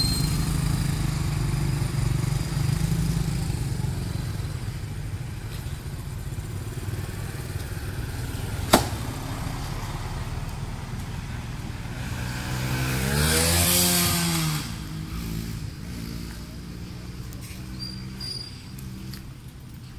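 Road traffic passing: motorbike and car engines running by, with one vehicle passing loudest about two-thirds of the way through, its engine pitch bending up and then down. There is a single sharp click about halfway in, and the traffic sound fades near the end.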